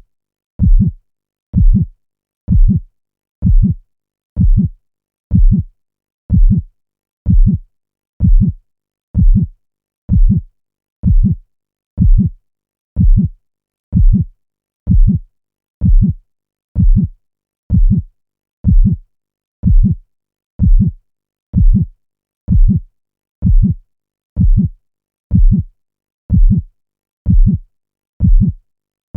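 Looped heartbeat sound effect: deep, low thuds, about one beat a second, steady and even, with silence between the beats.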